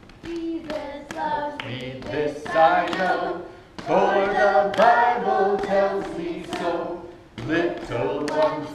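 Children and an adult singing a simple song together in unison, without accompaniment, in sung phrases with a short pause a little before the middle.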